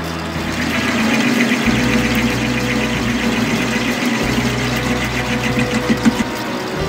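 Metal lathe running while its tool bit cuts a point onto the end of a threaded steel screw: a steady machine hum with a brighter cutting noise that builds from about a second in and eases near the end.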